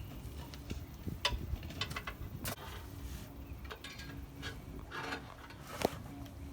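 Scattered metallic clicks and knocks of hand tools and parts being worked under a truck, with one sharper knock near the end. A faint steady hum runs from about halfway in.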